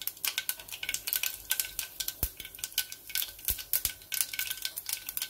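Mustard seeds popping and crackling in hot coconut oil in a frying pan: rapid, irregular sharp pops over a light sizzle, with a few louder cracks.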